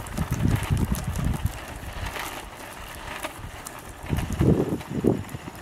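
Wind gusting on the microphone over the rolling of a Ripstick caster board's wheels on asphalt, with scattered small clicks as the 3D-printed PETG wheel's outer layer comes apart. The low rumbling gusts come at the start and again about four seconds in.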